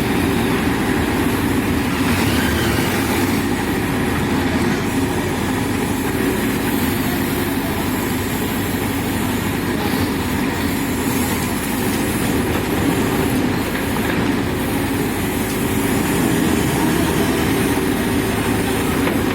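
Diesel engine of a JCB backhoe loader running steadily as the machine works.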